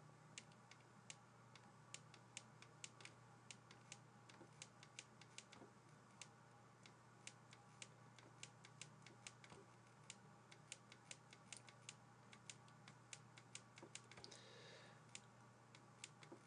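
Faint, irregular clicks of a pen stylus tapping on a graphics tablet during handwriting, about three a second, over a low steady electrical hum.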